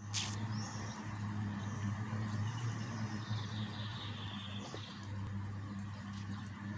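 Steady low drone of the outboard motor on a traditional flat-bottomed wooden river boat motoring across the river, with faint bird chirps above it.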